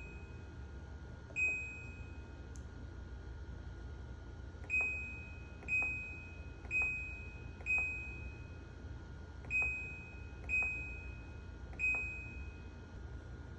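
Control panel of a White-Westinghouse top-load washing machine beeping as its buttons are pressed: about eight short, high beeps at uneven intervals, each with a light click, over a steady low hum.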